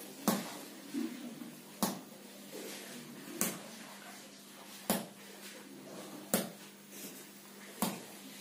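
A ball of cooked rice thrown down hard onto the floor and bouncing back up, six sharp smacks about one and a half seconds apart. Rice bouncing like a rubber ball is taken here as the sign of plastic rice.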